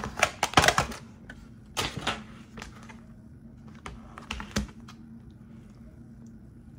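Scattered clicks and knocks of objects being handled, in a cluster near the start, another about two seconds in and a last pair around four and a half seconds, over a steady low hum.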